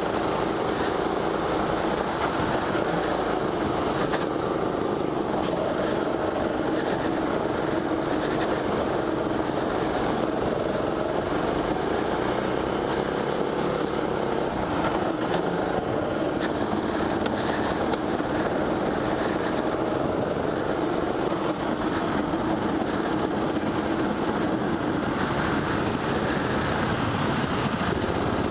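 Go-kart engine running hard, heard from the driver's seat, its pitch rising and falling as the kart speeds up and slows through the corners.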